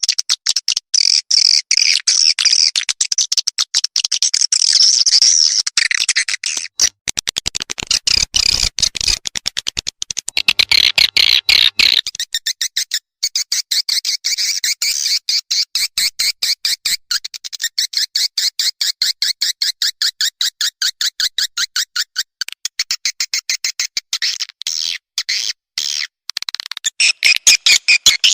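Swiftlet call lure recording: a dense, continuous chatter of short, high swiftlet chirps. About twelve seconds in it changes to a faster, more even pulsing trill.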